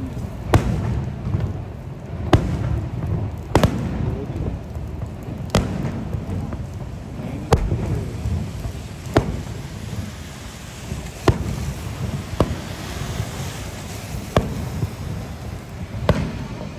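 Fireworks bursting overhead: about ten sharp bangs, one to two seconds apart, over a steady low rumble.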